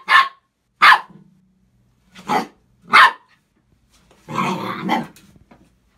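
A Pembroke Welsh corgi puppy barking inside an empty bathtub, crouched toward the drain. It gives four short, sharp yaps, then a longer, rougher growl about four seconds in.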